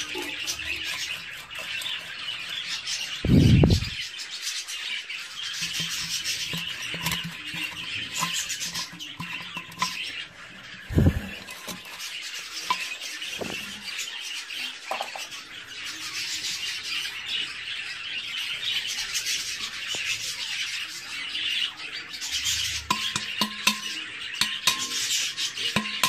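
Screwdriver tip scraping and grinding as it is twisted into the wall of an unglazed clay pot, over steady chirping and chattering of budgerigars. Two dull thumps stand out, about three and a half seconds in and again about eleven seconds in.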